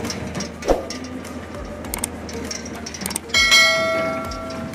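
A sudden bell-like ring about three and a half seconds in: one strike with several steady tones that fade away over about a second. A low steady hum and a few soft knocks lie underneath.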